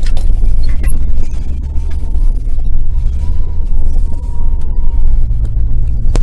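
Heavy low rumble of road and wind noise inside a moving car with the driver's window open, with scattered knocks of the camera being handled.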